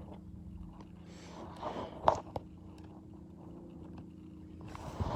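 Faint handling noises with a few soft clicks about two seconds in, over a low steady hum.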